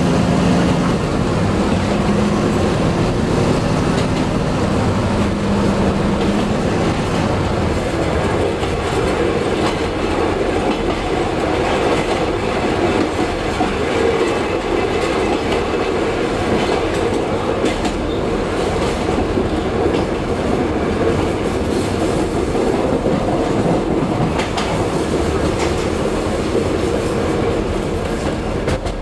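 Diesel railcar running along the line, heard from the cab: steady running noise with wheels clicking over rail joints. An engine hum is clear for the first several seconds and then sinks into the running noise.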